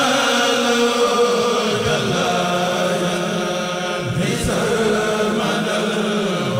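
A Mouride kourel, a group of voices, chanting a xassida in Arabic in unison, drawing out long held notes. A new phrase begins about four seconds in.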